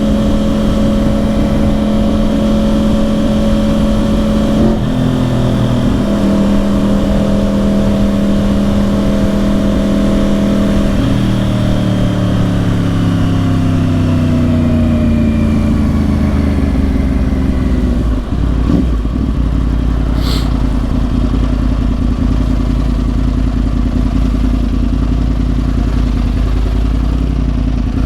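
2010 Yamaha R1's crossplane inline-four through dual Yoshimura exhausts, running at steady revs at first. From about halfway in, its pitch falls away over several seconds as the bike slows, and it settles to a low steady rumble near idle, with a couple of short clicks.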